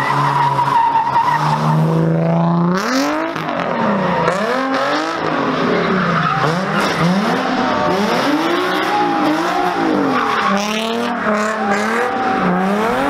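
A car's engine revved hard over and over, its pitch climbing about two seconds in and then rising and falling roughly once a second, with tyres squealing as the car slides and spins.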